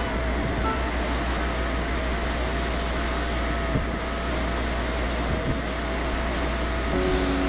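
Sandblasting in a blast cabinet: a steady hiss of compressed air and abrasive from the blast gun striking a metal waffle-maker part, over a low hum.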